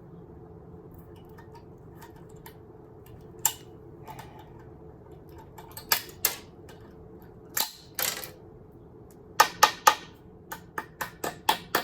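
Sharp knocks and clicks of hard parts as a CRT television's deflection yoke is pulled and pried at to get it off the tube's neck. The knocks are scattered, with three loud ones near the end followed by a quick run of lighter ones.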